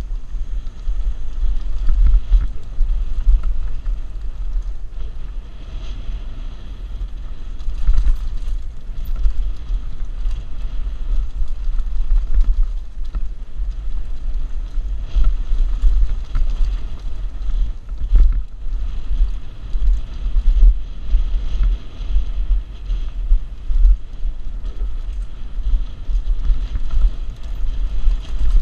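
Wind buffeting over a helmet-mounted action camera's microphone during a fast mountain-bike descent, a heavy fluctuating rumble, with frequent short knocks and rattles as the Mongoose Pinn'r bike jolts over rough trail.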